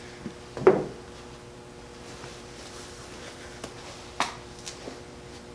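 Handling sounds of a disposable dust mask being unwrapped and put on: a short rustle about a second in, then three sharp snaps as the elastic straps are pulled over the head, over a faint steady hum.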